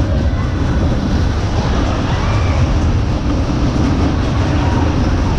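Ice Jet fairground ride running its backward cycle at speed, a loud steady rumble of the cars going round the track.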